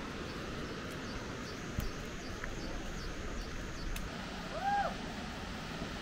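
Steady rushing of the Casca d'Anta waterfall. A dull thump comes about two seconds in, and a single short bird call near the end.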